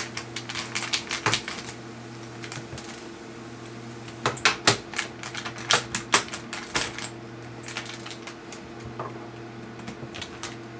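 Irregular light clicks and ticks of a small screwdriver working tiny screws out of a laptop's screen assembly, in quick clusters with a lull of about two seconds near the start.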